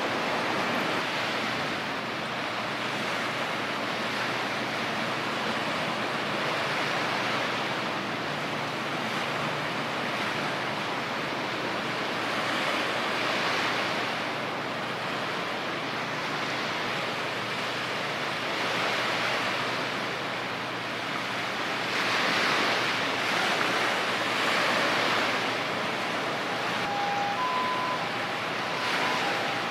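Steady rush of wind and sea water washing, swelling a little about two-thirds of the way through, with a few short faint high tones near the end.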